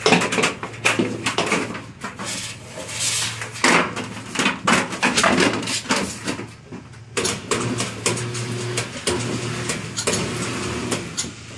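Thin metal gutter coil rattling, flexing and scraping against a seamless gutter machine as it is threaded by hand toward the rollers: a quick, irregular run of light metallic clatters.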